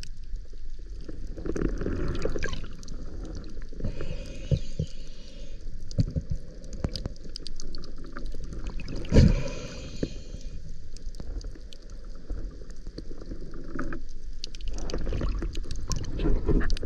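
Water sloshing and gurgling heard underwater, as a spearfisher swims along the reef, with many scattered small clicks and one louder knock about nine seconds in.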